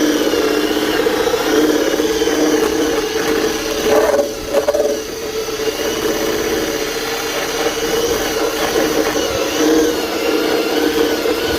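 Bauer surface conditioning tool, an electric drum sander, running under load as its abrasive drum strips layers of paint: a steady motor whine that wavers in pitch as the drum bites, with a brief dip about four seconds in.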